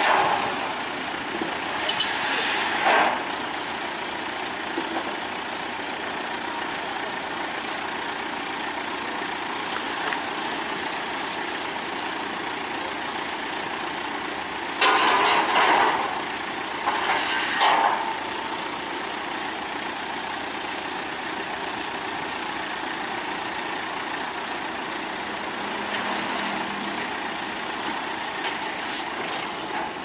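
Combine harvester's engine running steadily, with short louder bursts of sound a couple of seconds in and twice around the middle.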